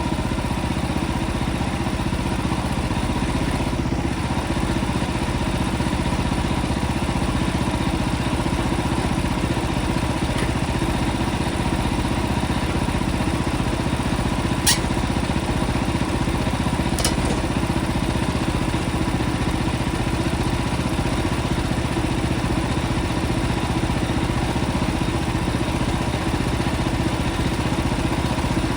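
Portable band sawmill's engine running steadily. There is a sharp click about halfway through and a fainter one a couple of seconds later.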